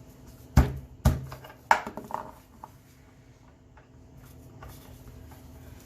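Hammer tapping a metal push nut (axle hat nut) onto the end of a wooden dowel: three sharp blows about half a second apart, then a couple of lighter knocks.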